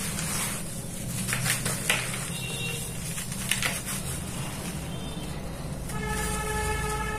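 Hands crushing and crumbling soft lumps of dry red dirt, with gritty crunches and powder sifting and pattering back into the heap. The sharpest crunches come about 2 seconds and 3.5 seconds in.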